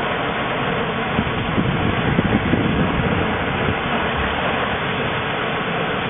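Steady rush of the bow wave and spray along the hull of the surfaced submarine K-44 under way at sea, with wind buffeting the microphone in uneven gusts.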